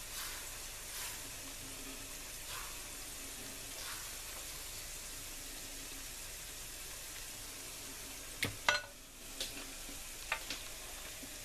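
Dosa batter sizzling steadily in a hot non-stick frying pan as it is spread with a metal ladle. Two sharp clicks come about eight and a half seconds in, with a few lighter ones a couple of seconds later.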